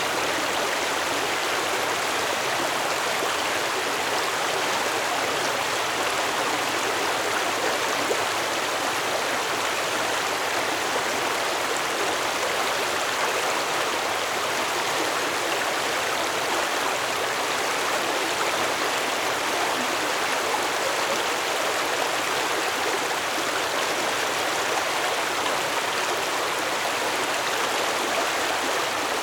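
Stream water flowing in a steady, even rush over its bed.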